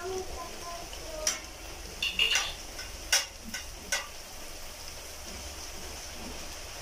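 Masa tortilla frying in hot lard in a metal skillet: a steady sizzle. A perforated spatula clicks and scrapes against the pan five or six times during the first four seconds, then only the sizzle goes on.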